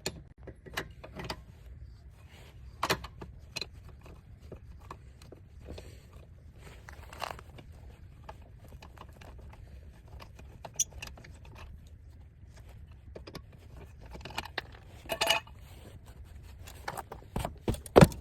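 Scattered metallic clinks, rattles and scrapes of hand tools and hardware being worked on a car wheel during a roadside tyre change, loudest just before the end, over a steady low rumble.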